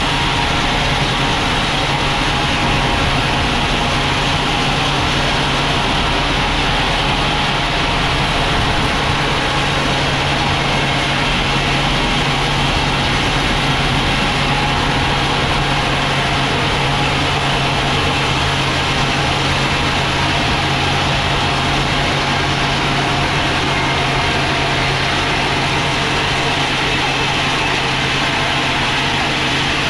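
Sawmill machinery running steadily: a continuous engine-like drone with a constant low hum, unchanging in level.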